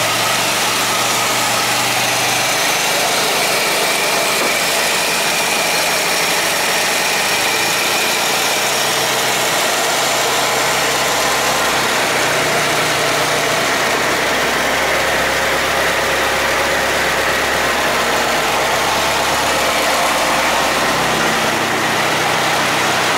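1925 Ford Model T's four-cylinder side-valve engine running at idle. Its low note drops about eight seconds in and comes back up near the end, as the engine speed changes.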